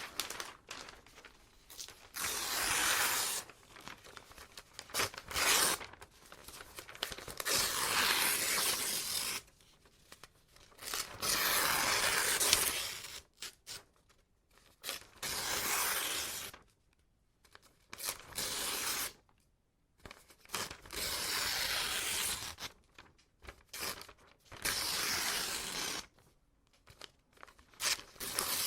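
Paper being ripped, about nine long tears of one to two seconds each, with pauses of light rustling and crinkling between them.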